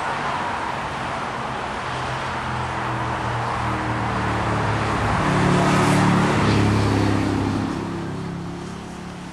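Engine of a small aircraft passing, a steady drone with wind-like rushing noise. It grows louder to a peak about six seconds in, then fades.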